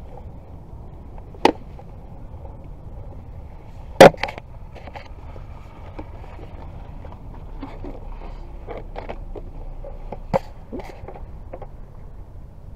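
Handling noise from a handheld camera being moved around: a few sharp knocks, the loudest about four seconds in and others near a second and a half and ten seconds, over a steady low rumble.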